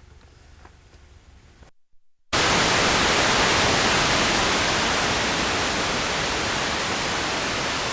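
Faint background with a small click, then a brief dropout to dead silence. About two seconds in, a loud, steady hiss of static (white noise) starts abruptly, easing off only slightly.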